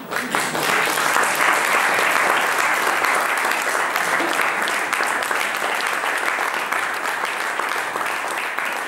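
Audience applauding: many hands clapping, breaking out all at once and holding steady, easing slightly near the end.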